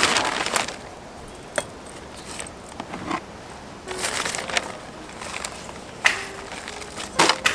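Plastic potting-soil bag crinkling as it is pulled open, then a hand trowel scooping soil out of the bag in a few short, separate scrapes.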